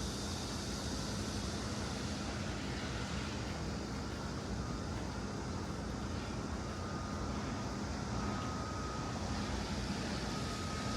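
Steady rushing ambience of an urban stream's flowing water mixed with city traffic noise, with a faint low hum and a thin high tone that comes and goes in the second half.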